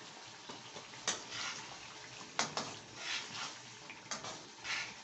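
A metal spoon stirring raw chicken pieces into a wet tomato masala in the pot: three sharp clinks of the spoon against the pot, each with short wet swishes of the stirring.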